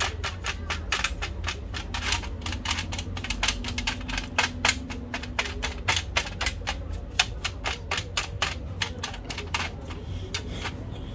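Rapid, irregular metallic clicking and tapping, several clicks a second, as a screwdriver works against the thin sheet-steel plate and lever brackets of a mechanical bathroom scale.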